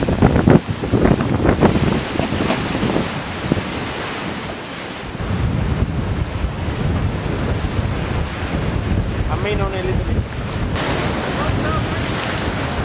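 Wind buffeting the microphone and seawater rushing and crashing along a racing sailboat's hull. Heavy spray strikes several times in the first few seconds. A brief pitched, bending sound comes about two-thirds through.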